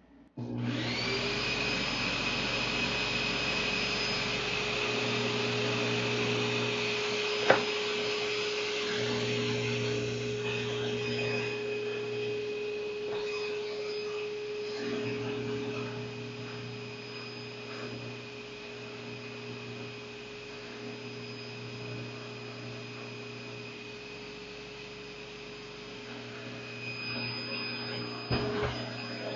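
Electric bench buffer motor spinning up to speed with a rising whine, then running steadily while a pipe stem is polished against its cloth buffing wheel. A single sharp click about seven seconds in.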